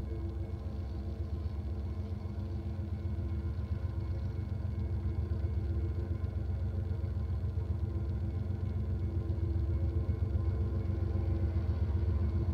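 Diesel locomotive engine running out of view: a steady low rumble with a droning engine hum that slowly grows louder.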